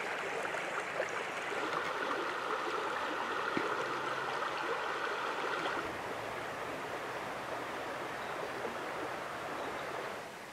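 River water running over shallow, rocky riffles: a steady rushing flow. About six seconds in it changes to a slightly softer, even flow.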